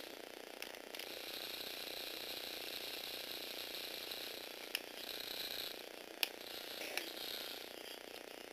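Small electric motor driving a toy's plastic gearing, a steady whirr punctuated by a handful of sharp clicks, the loudest about six seconds in.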